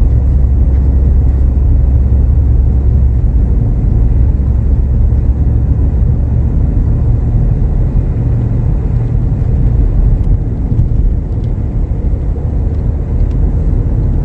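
Steady low rumble of a car driving at speed: road and engine noise.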